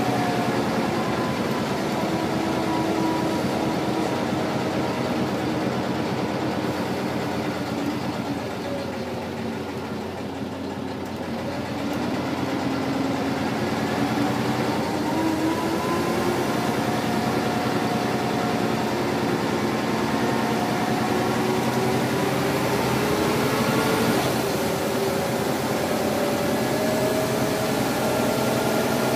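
Scania L94UD single-deck bus's diesel engine and ZF automatic gearbox, heard from inside the saloon while the bus is driving. The engine note drops and quietens about a third of the way through as the bus slows, then climbs steadily as it pulls away, with a gear change near the end.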